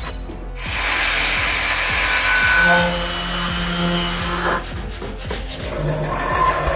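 Wood being sanded: a steady rasping for about three and a half seconds, stopping about four and a half seconds in, with background music.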